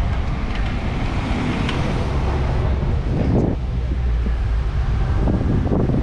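Wind rushing and buffeting over the microphone of a camera on a moving bicycle, a steady low rumble, with street traffic noise mixed in.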